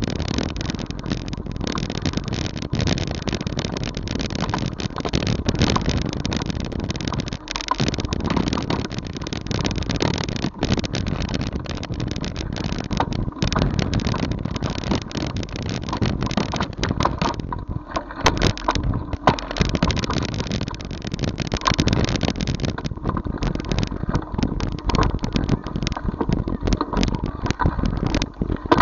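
Road noise and rattling from a low-mounted camera on a moving bike riding over rough, cracked concrete, with many small knocks and clatters and wind on the microphone throughout.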